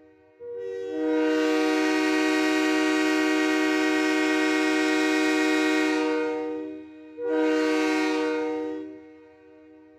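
Train horn sounding one long blast of about six seconds, then a shorter blast of about two seconds. Each blast is a chord of several steady tones, and in the first the lowest note comes in a moment after the others.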